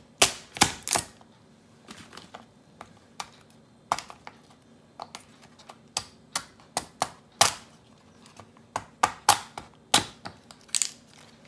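A cleaver cracking through king crab leg shells and knocking on a wooden cutting board: an irregular run of sharp cracks and taps, loudest in a cluster near the start and again in the second half.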